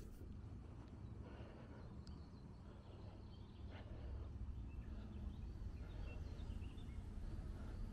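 Outdoor ambience: a low steady rumble with faint, scattered bird chirps from the surrounding woodland.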